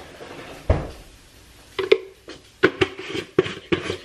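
Handling a plastic collagen-powder tub and its scoop over a ceramic mug: a soft thump about a second in, then a click, then a run of quick plastic clicks and taps near the end as the tub's lid goes back on.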